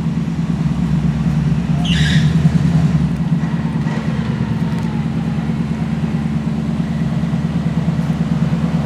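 Vehicle engine running steadily at idle, swelling slightly about two seconds in, with a short hiss at the same moment.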